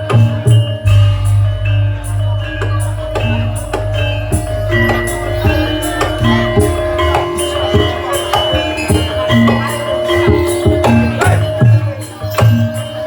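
Loud barongan accompaniment music: struck percussion hits over held steady notes and a low drone.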